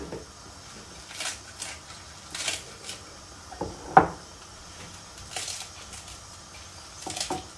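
Kitchen knife cutting crisp lettuce leaves by hand, in short crisp snicks a few seconds apart, with one louder ringing clink about four seconds in as the knife meets the glass bowl.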